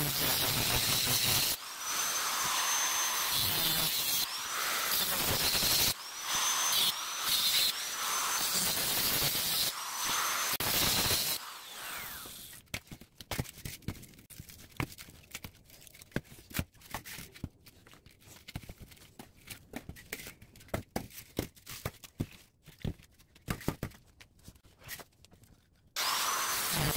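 Angle grinder with a cut-off disc cutting through a scrap two-layer radiator core. It stops briefly several times, and each time its pitch climbs back up as the disc comes back to speed. About twelve seconds in the grinding stops, and scattered clicks and clatter follow as the cut radiator pieces are pulled apart and handled.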